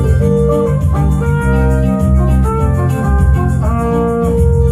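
A trumpet-family horn playing a slow melody of long held notes over a keyboard backing track with organ-like chords and bass.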